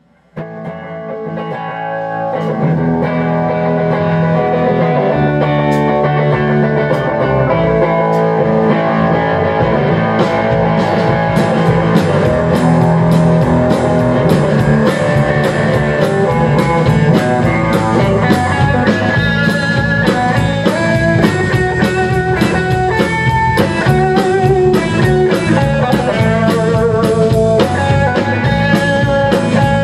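Rock band playing live: two electric guitars and a drum kit in an instrumental passage. The music starts about half a second in after a brief silence and swells over the first couple of seconds, with sharper drum hits from about ten seconds in.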